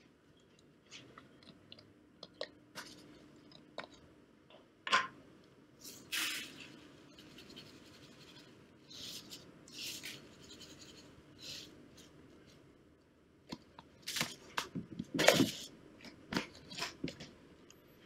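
Caustic soda being tipped from a plastic tub into a plastic bucket: irregular clicks and scrapes of the tub and its lid being handled, with a few short rattling rushes of about a second as the soda pours in.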